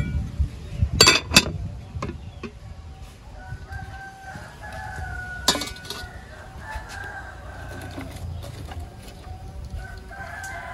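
A rooster crowing, a long call a few seconds in and again near the end, over a low background rumble. Two sharp knocks sound about a second in.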